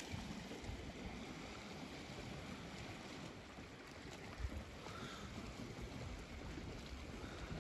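Steady outdoor wind and sea noise, with a low buffet of wind on the microphone about four and a half seconds in.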